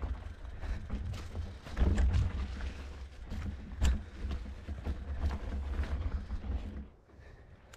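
Mountain bike rolling fast over a rocky, leaf-strewn trail: the bike rattles and knocks as the tyres hit rocks and roots, over a steady low rumble, with the sharpest knocks about two and four seconds in. It goes much quieter about seven seconds in.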